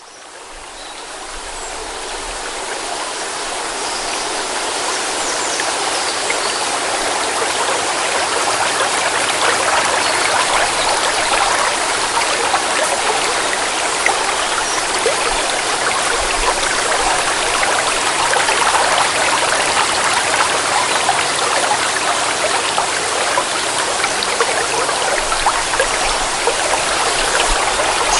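A forest stream flowing: a steady rush of trickling, splashing water that fades in over the first few seconds.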